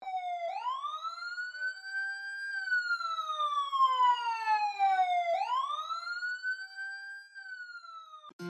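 A wailing siren, its pitch sweeping quickly up, holding, then sliding slowly back down, twice over, and cutting off near the end.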